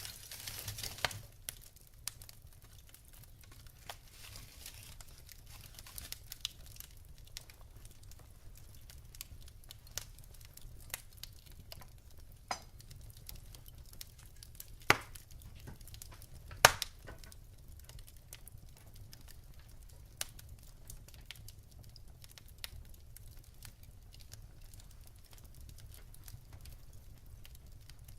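Wood fire burning in a fireplace: scattered crackles and pops from the burning logs over a low steady rumble, with two louder sharp pops a little past halfway.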